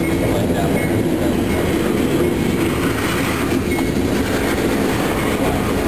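Freight train rolling past: a steady rumble of wheels on rails.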